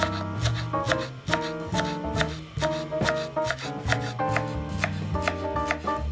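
Chef's knife chopping fresh parsley on a bamboo cutting board, quick repeated knocks of the blade on the wood, over background music.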